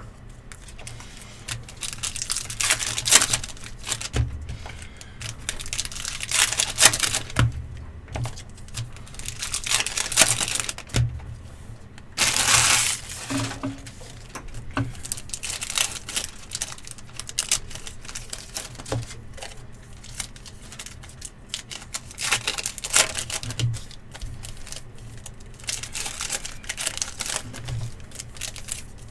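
Trading-card pack wrappers being torn open and crinkled, in irregular bursts every few seconds, with light clicks and taps of cards being handled in between.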